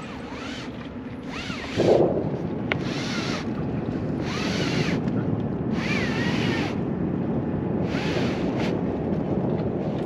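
Wind buffeting the microphone over the wash of water, with a short thump about two seconds in. Brief high rustles recur every second or so while the sailcloth is being handled.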